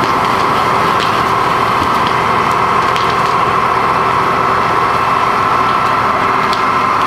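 Fire engine running steadily with a constant drone, over faint crackling from the burning mobile home.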